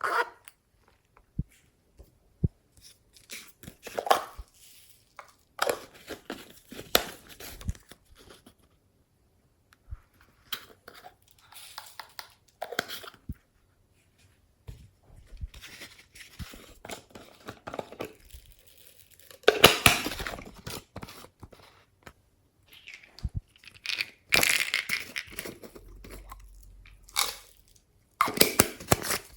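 Slime being squeezed, stretched and pressed by hand, giving irregular bursts of crackling, popping and crunching with short pauses between them. The loudest bursts come about two-thirds of the way through and again near the end.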